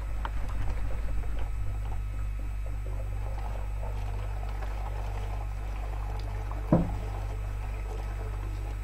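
Water swirling and running down through a homemade vortex connector of two bottle caps glued together, from one large bottle into another, with a gurgling rush that is louder in the first two seconds. A single sharp knock comes near seven seconds in.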